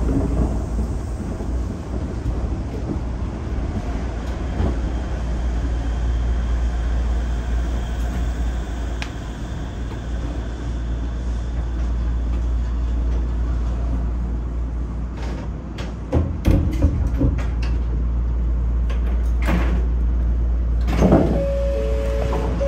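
Inside a Shonan Monorail 5000-series suspended monorail car: a steady low hum, with a few clicks and knocks in the second half. Near the end a two-note electronic chime sounds twice.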